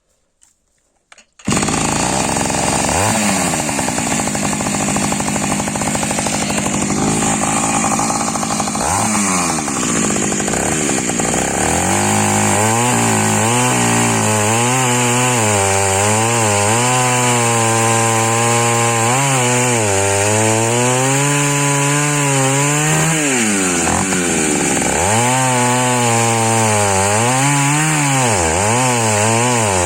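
Taiga 214 two-stroke chainsaw running, starting abruptly about a second and a half in. Its engine speed rises and falls over and over as it works.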